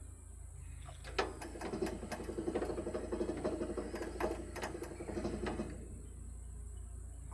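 A hand-worked metal mechanism on a portable sawmill clicking and rattling in a rapid run. It starts about a second in, stops after about five seconds, and starts again near the end.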